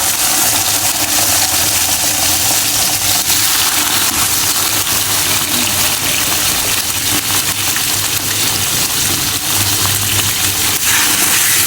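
Steak searing in a pan of butter and oil, a loud, steady sizzle.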